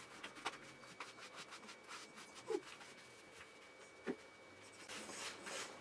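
Faint rubbing and scratching of hands scrubbing shampoo lather through a wet cocker spaniel's coat, with small clicks. Two short falling squeaks sound about two and a half and four seconds in.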